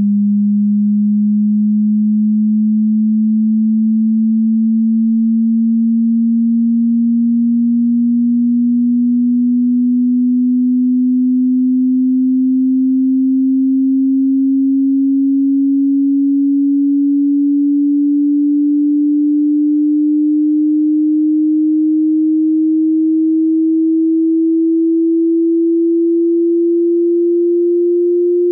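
Pure sine test tone, a single low note slowly and evenly rising in pitch: a frequency sweep for a hearing test.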